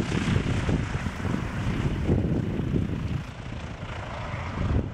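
A Douglas DC-3's twin radial engines and propellers running as it rolls along the runway. The rumble dips about three seconds in and swells again near the end.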